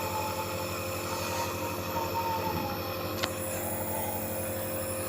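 Nebulizer compressor running with a steady mechanical hum, making the medicated mist a child inhales for a cough. A short click about three seconds in.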